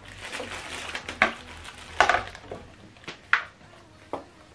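Handling noise: plastic packaging rustling, then four sharp knocks of hard plastic as a soundbar column is handled and set upright on a table.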